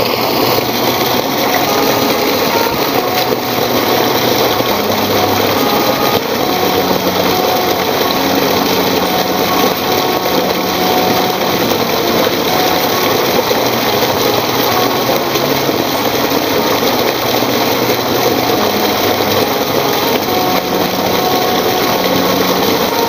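Background music with a dense, steady texture and a bass line that steps from note to note.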